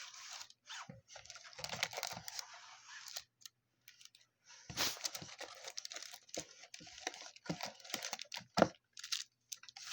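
Rustling, crinkling and light clicks of a trading-card box and its packs being handled, in irregular bursts with a short lull about a third of the way in.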